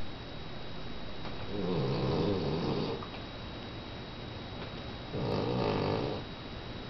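Boston terrier snoring in his sleep: two long, loud snores, the first about a second and a half in and the second about five seconds in, each over a second long, with quieter breathing between.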